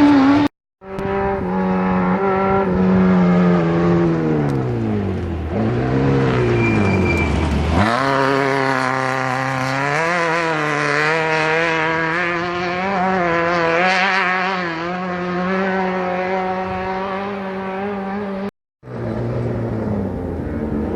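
Off-road race vehicle engines running hard. In the first part an engine's pitch slides down as it passes and eases off. Around eight seconds in another engine takes over, running at a fairly steady pitch that wavers up and down as the throttle is worked. The sound drops out completely for a moment twice, near the start and near the end.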